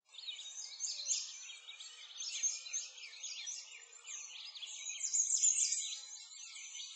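Many small birds chirping and twittering together in a dense, continuous chorus of quick, high-pitched chirps.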